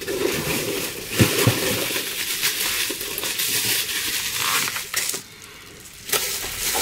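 Packaging rustling and crinkling as an item is handled and unwrapped from a box. The rustle runs almost without a break, with a couple of light knocks a little over a second in and a short lull about five seconds in.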